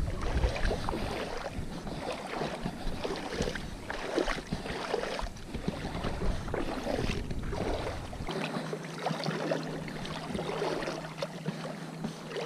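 Seawater sloshing and splashing irregularly in shallow water, with no voices.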